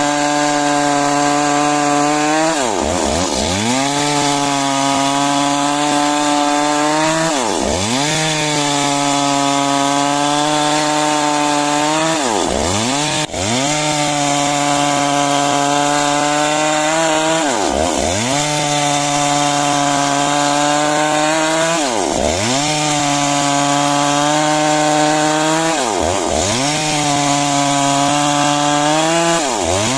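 Chainsaw running at high speed while ripping timber into beams, its engine note dipping sharply and recovering about every four to five seconds.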